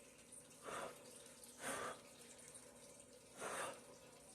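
Three short puffs of breath blown over wet pour paint to push it across the coaster, each about a quarter second long, with pauses of one to two seconds between them.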